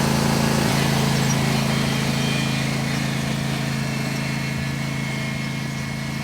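Riding lawn mower engine running steadily at speed, gradually fading as the mower moves away.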